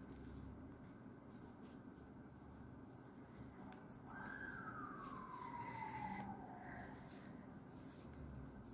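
A faint wailing tone over quiet room tone: about four seconds in it rises quickly, then glides slowly down for about three seconds.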